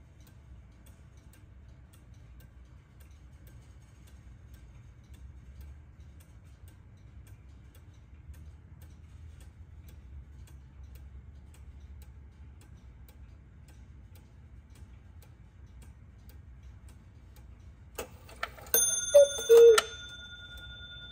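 Hönes eight-day Black Forest cuckoo clock ticking faintly and steadily. About eighteen seconds in it starts its strike with a click and a ringing metallic note, then gives one loud two-note cuckoo call, the second note lower.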